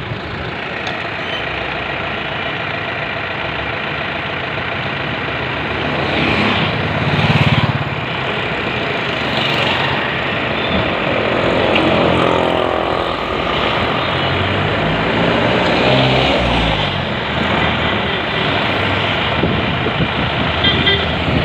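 Road traffic: a steady wash of vehicle engines passing close, with the engine notes of heavier vehicles rising and falling as they pass, loudest about six to eight seconds in and again around twelve to seventeen seconds.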